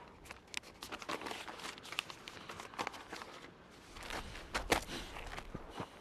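Paper notepad being handled: irregular crinkling and small crunching clicks, with a slightly louder cluster of clicks in the second half.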